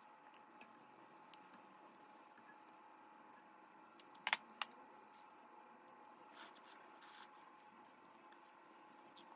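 Near silence: quiet room tone with a faint steady hum, a quick cluster of sharp clicks about four seconds in, and two soft brushing noises a couple of seconds later.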